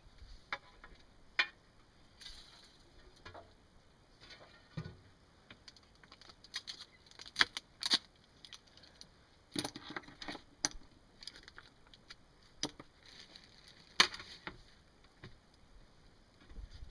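Scattered light clicks, taps and knocks at irregular intervals, from small hard pieces being handled and set down. The sharpest knocks come about eight and fourteen seconds in, with a short clatter in between.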